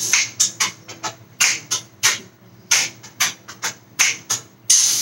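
A rapid run of sharp, kiss-like smacking clicks made with the mouth, about three a second at uneven spacing, with a longer hissing burst near the end.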